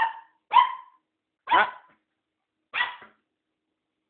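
Mixed-breed puppy barking: four short, sharp barks at uneven intervals.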